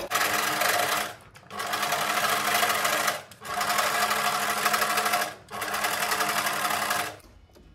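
Singer Simple electric sewing machine running in four stretches of a second or two, with brief pauses between, as it sews a long gathering stitch through fabric; it stops about seven seconds in.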